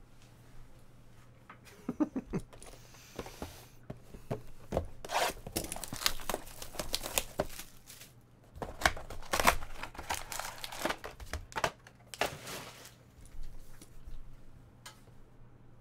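Trading card packs and their wrapping being torn open and crinkled by hand, in irregular bursts of ripping and rustling, heaviest in the middle and dying away near the end.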